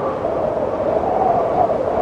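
Wind blowing steadily, with a howling tone that wavers up and down in pitch over a rushing hiss.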